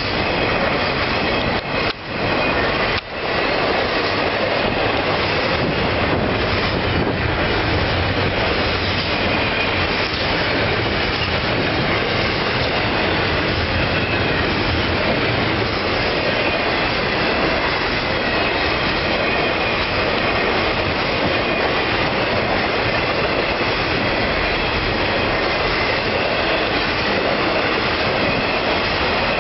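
Intermodal freight train cars rolling past: a loud, steady rush of steel wheels on rail, with a faint high wheel squeal and two brief dips in the noise a few seconds in.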